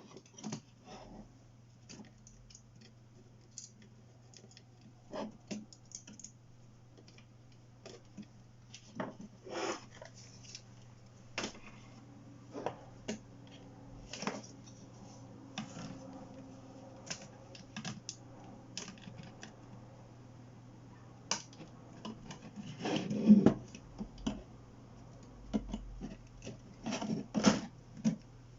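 Irregular small clicks, taps and scrapes of computer hardware being handled and fitted, with louder knocks about two-thirds of the way through and again near the end, over a steady low hum.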